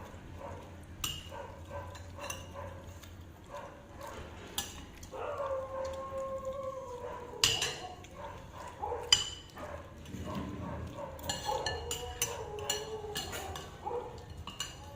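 Clinks and knocks of dishes and utensils, with a drawn-out wavering whine twice, each lasting two or three seconds.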